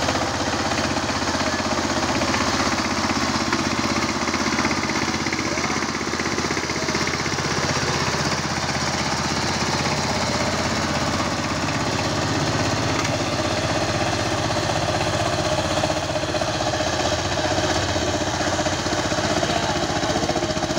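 Power tiller's diesel engine running with a rapid, steady chugging.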